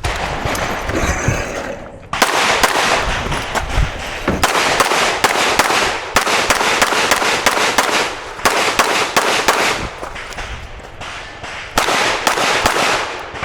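Glock 47 9mm pistol firing a rapid series of shots in short quick strings with brief pauses between them, each shot trailing off in an echo, during a timed competition course of fire.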